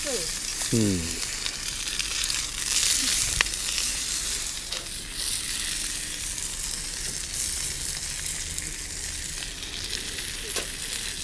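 Beef steak sizzling steadily in a frying pan over a fire, with a single sharp click about three seconds in.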